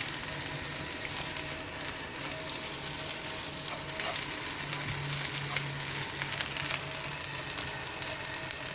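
Fried rice with anchovies sizzling in hot oil in a pan, a steady hiss with scattered small crackles, over a faint low hum.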